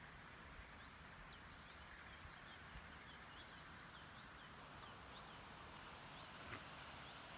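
Faint open-air ambience with a small bird chirping over and over, short high calls about two or three a second.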